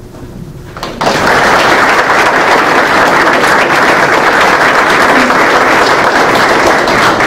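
A roomful of people applauding, loud and steady, starting suddenly about a second in.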